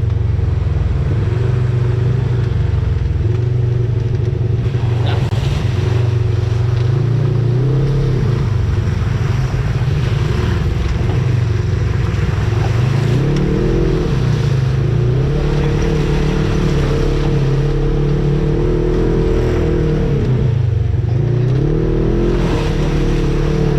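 Off-road vehicle engine running while driving, its pitch rising and falling with the throttle over a steady low rumble.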